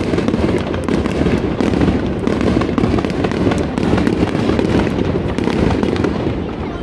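Aerial fireworks bursting in a dense, continuous barrage: many overlapping booms and cracks over a deep, steady rumble, easing slightly near the end.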